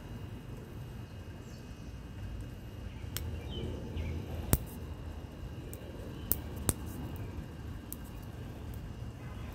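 Kerosene pressure stove burner running with a steady low rumble, with a few sharp clicks in the middle, the loudest about four and a half seconds in.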